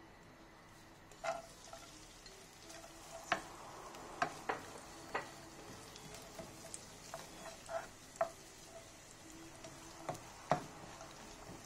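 Diced bak kwa frying in oil in a nonstick pan with a low sizzle, while a wooden spatula knocks and scrapes against the pan about a dozen times at an irregular pace as the pieces are stirred until crispy.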